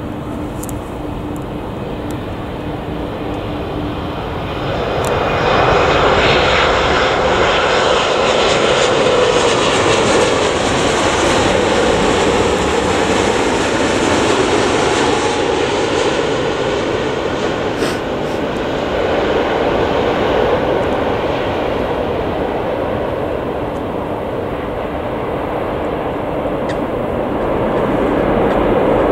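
A Boeing 787-9 twin-engine jet airliner passing low on final approach. The engine roar builds about five seconds in, holds loud for around ten seconds as it goes by, then eases. It swells again near the end as the airliner rolls along the runway after touchdown.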